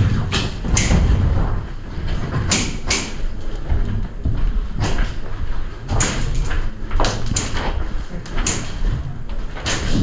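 Scattered sharp clacks and knocks, about a dozen, several of them in pairs about half a second apart, over a steady low rumble.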